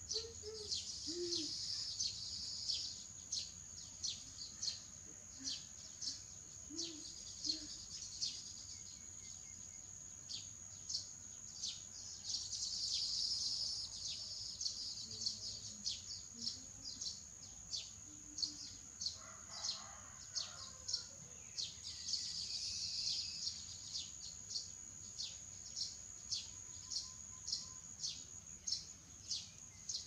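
Outdoor chorus of small wild creatures: a steady high-pitched whine under a short chirp that repeats about twice a second. Three times a soft hissing swell rises and fades, about a second in, near the middle and later on.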